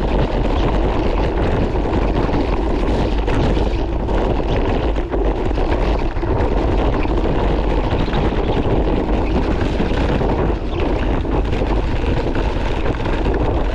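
Wind buffeting an action camera's microphone over a mountain bike's tyres rumbling down a rocky, muddy trail at speed, with scattered knocks from the wheels hitting stones.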